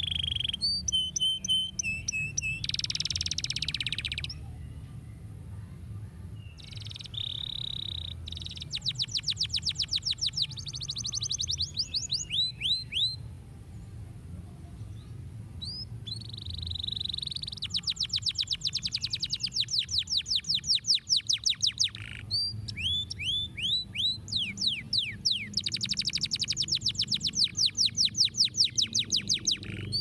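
Domestic canary singing a long song of fast rolled trills, each a rapid run of repeated down-slurred notes, broken by held steady notes, short slurred chirps and brief pauses.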